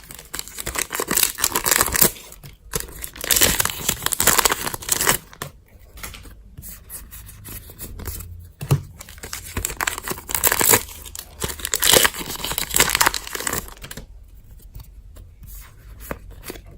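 Foil Pokémon card booster pack being torn open and its wrapper crinkled, in several rips and rustles, loudest in the first few seconds and again around ten to thirteen seconds in.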